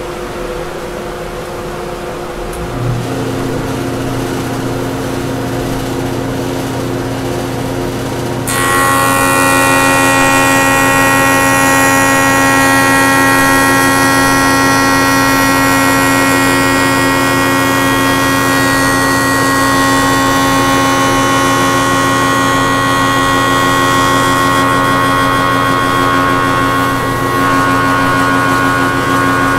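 Overhead pin router with a router bit hogging out waste from a molding blank. A low hum comes on about three seconds in. About eight seconds in, a loud, steady high-pitched whine with cutting noise starts suddenly and holds, easing slightly near the end.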